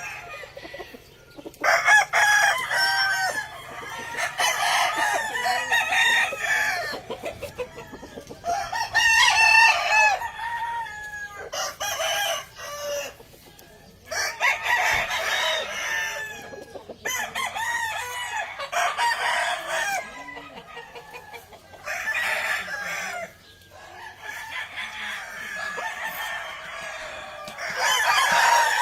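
Several hennie game-fowl roosters crowing one after another, about ten crows that often overlap, with hens clucking between them.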